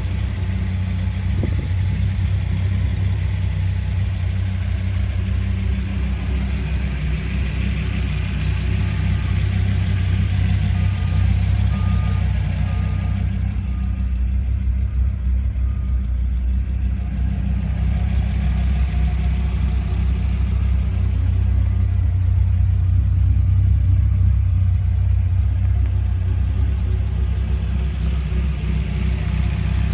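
2006 Dodge Viper SRT10's V10 engine idling steadily with a low, even tone.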